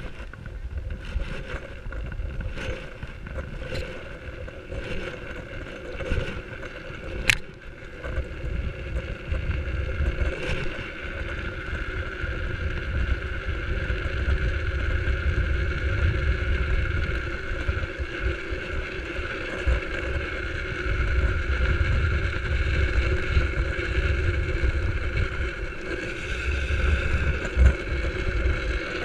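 Drift trike coasting downhill on asphalt: a steady rumble and whir of its hard rear wheels on the road, mixed with wind on the camera microphone, growing louder as it gathers speed. A few light ticks come in the first seconds and one sharp click about seven seconds in.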